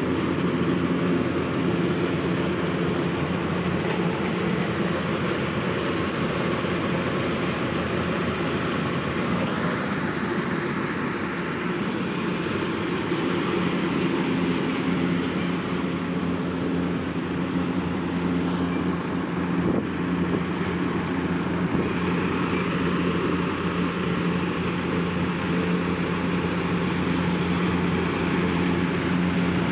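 Tractor engine running steadily, driving a grain cleaning machine whose shaking sieves rattle as grain pours through: a constant engine drone under a continuous rushing, rattling hiss.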